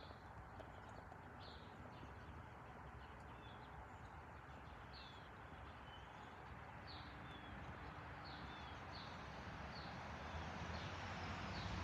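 Distant jet rush of a Boeing 767-300 freighter passing high overhead, growing louder over the last few seconds. Small birds chirp in short high notes throughout.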